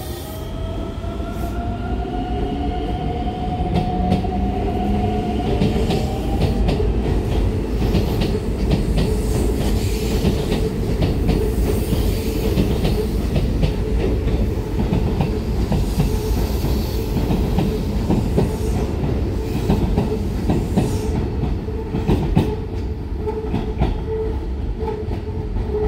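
Keikyu 1500-series electric train pulling away from the platform: its motors whine, rising in pitch over the first few seconds as it gathers speed. Then a steady rumble and fast clatter of wheels over rail joints as the cars pass, with a faint wheel squeal near the end.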